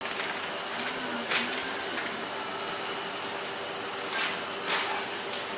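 Steady workshop hum with a faint, very high whine that slowly falls in pitch over the first few seconds. A handful of short knocks and scuffs come from handling a curved glass panel in a brass frame, around a second in and again near the end.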